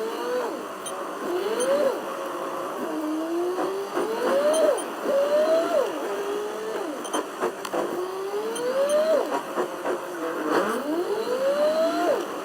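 Car engine accelerating through the gears: its pitch climbs steadily, then drops sharply at each shift, several times over.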